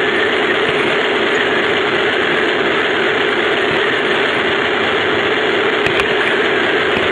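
1:16 scale radio-controlled Tiger I tank driving, heard close from its own hull: steady drivetrain and track noise with a faint whine that drifts in pitch.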